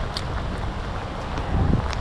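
Steady rain falling, with wind buffeting the microphone in a low rumble that surges loudest about one and a half seconds in. A few sharp ticks of single drops are heard.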